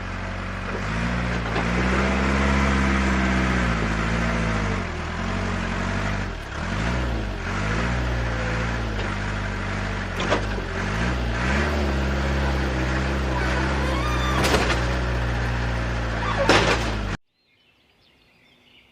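Engine of an RC construction vehicle running, its revs rising and falling again and again, with a couple of sharp knocks near the end; the sound cuts off suddenly a couple of seconds before the end.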